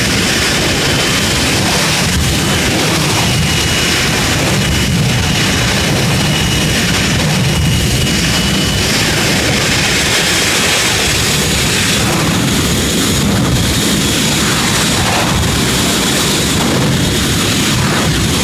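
Jet car's engine running flat out with its flame blast, a loud unbroken roar with a thin high whine over it.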